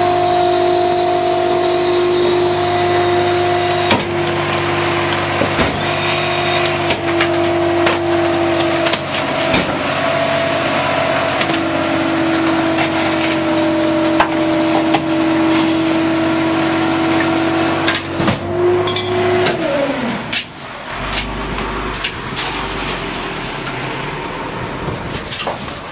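Rear-loader garbage truck running its packer cycle: a steady, even-pitched drone with scattered clanks and knocks, until the pitch falls and the drone dies away about twenty seconds in, leaving quieter clatter.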